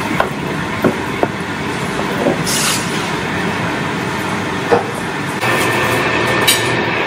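A wooden spatula stirs and knocks lightly against a nonstick pan of simmering fish curry, over a steady rushing background noise. About five seconds in, a refrigerator is opened, with a few light knocks as a dish is taken out.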